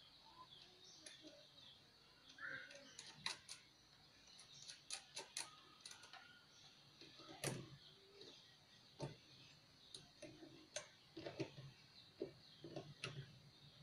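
Faint, irregular clicks and taps of hands fitting a crimped ring terminal onto a car battery's positive terminal and working its nut.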